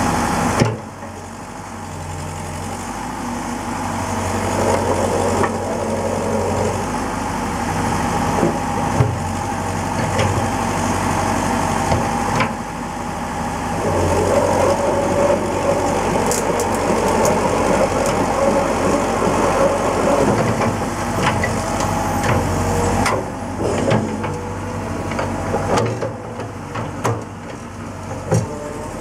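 Liebherr R911B crawler excavator's diesel engine running, its note rising and falling with the load as the machine tracks and swings its boom. A few sharp knocks now and then.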